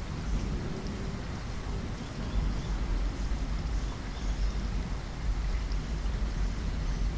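Steady rain falling, an even hiss of drops, with a deep low rumble running underneath.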